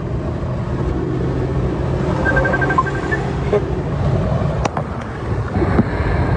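Inside a car's cabin while driving: steady engine and road rumble. A run of short high beeps comes about two seconds in, and a couple of sharp clicks come near the end.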